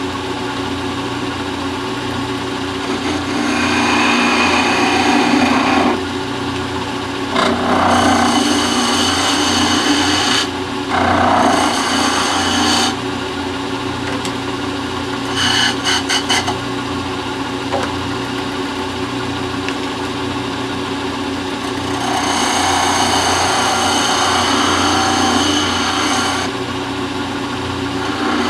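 Shopsmith 10ER lathe, driven by a half-horsepower Rockwell electric motor, running with a steady hum while a chisel cuts the spinning teak leg in several rasping bouts a few seconds long, with a quick run of short strokes in the middle. The cuts are trimming the tenon down to a 1-inch diameter.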